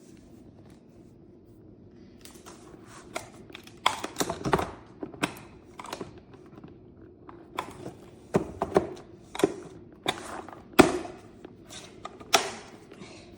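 Plastic dirty-water tank of a Dreame H12 Pro wet-dry vacuum being shoved and jiggled into its hard-to-fit slot: irregular plastic knocks and clicks, several a second at times, until it clicks into place.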